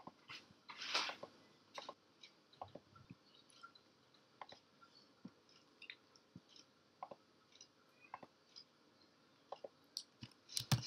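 Faint, irregular computer keyboard typing and mouse clicks, a few taps a second, with a louder cluster of clicks near the end.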